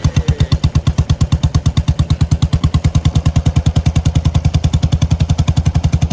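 Royal Enfield Bullet single-cylinder engine running through a shot-bottle exhaust: a loud, even thump of about a dozen beats a second, held steady. The stock catalytic converter is still fitted.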